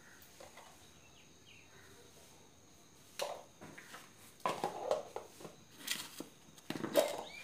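Plastic spice containers and a bowl handled on a kitchen counter while spices are added to a pot: a few short knocks and clatters in the second half, the loudest near the end.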